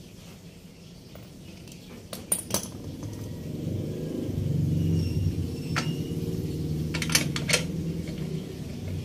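Small metal parts, bolts and hand tools, clinking sharply against each other and the concrete floor, a few clinks at about two seconds in, one near six and a pair near seven and a half. Under them a low hum swells in the middle and fades near the end.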